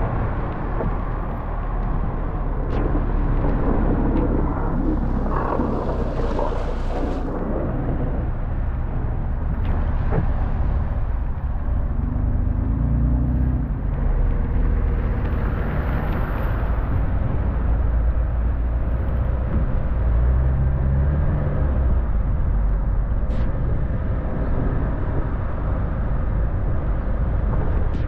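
Car driving on a snow-covered street, heard inside the cabin: a steady low rumble of tyres and engine, with an occasional faint click.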